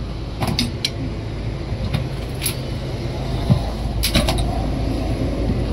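Scattered knocks and clanks as a truck tyre is worked off its rim, its bead still stuck, over a steady low machine hum.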